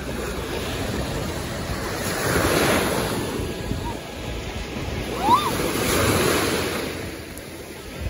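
Small waves washing in over a shallow sandy shore, swelling and easing twice, with a brief high-pitched cry about five seconds in.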